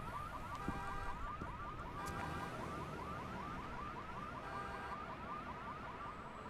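Car alarm sounding: a quick run of repeated rising chirps, with short stretches of steady beeping tones mixed in.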